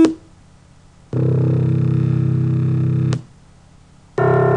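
Two low synthesized tones, each a sum of pure sine tones built to imitate a grand piano's low C1 note. The first is deep and dull, sounding for about two seconds from about a second in. The second, brighter one with more upper partials starts near the end.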